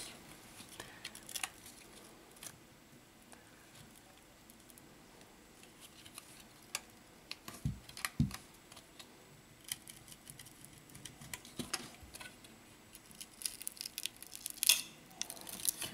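Faint, scattered clicks and scratchy ticks of a thin plastic opening pick being worked along the glued seam of a smartphone's heated back cover as it is pried loose. There are two dull thumps about eight seconds in.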